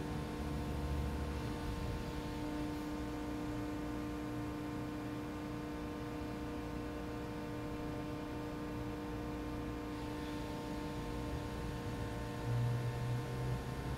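Steady mechanical hum of the drive machinery of a ship's shell door and retractable accommodation ladder as the ladder swings down, with a tone that strengthens about two seconds in. A louder low rumble comes near the end.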